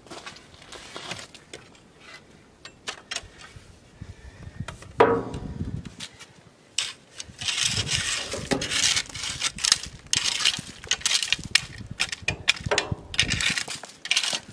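A metal rake scraping and dragging through crushed gravel, with dense gritty crunching and clicking of stones. There is a single ringing metal clank about five seconds in.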